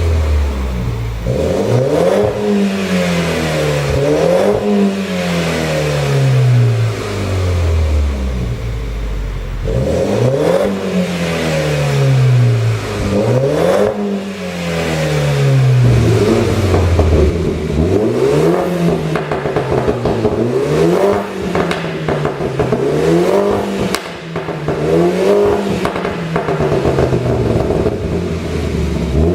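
BMW G30 530i's turbocharged four-cylinder engine revved about a dozen times, each time rising quickly and falling back, with the exhaust popping and crackling on the overrun from a pop-and-crackle tune.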